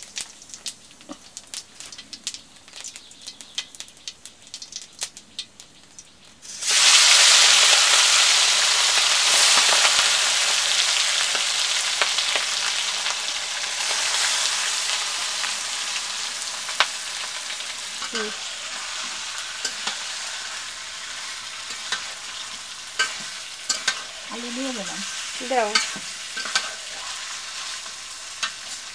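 Marinated chicken pieces going into hot oil in an aluminium kadai: light crackling at first, then a sudden loud sizzle about seven seconds in that slowly dies down while a metal spatula stirs and scrapes the pan.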